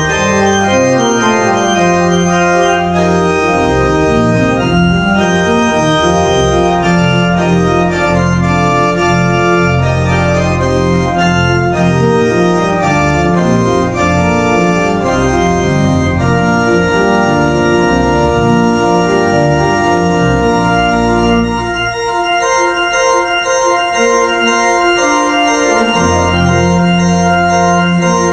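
Church organ playing loudly, with moving figures in the upper voices over long sustained pedal bass notes; the bass drops out for a few seconds near the end and then comes back.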